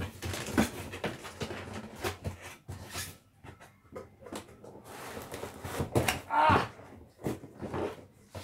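Cardboard box and packaging being handled and pulled open: irregular rustling, scraping and light knocks, with a short squeaky sound about six seconds in.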